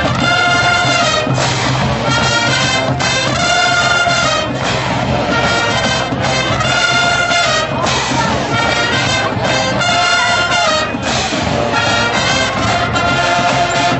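Marching band brass (trumpets and trombones) playing a loud, repeated phrase of held notes, each lasting about a second with short breaks between.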